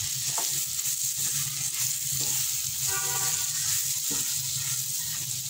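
Green chillies and spices sizzling steadily in hot oil in a metal kadai while a spatula stirs them, with a few light scrapes of the spatula against the pan.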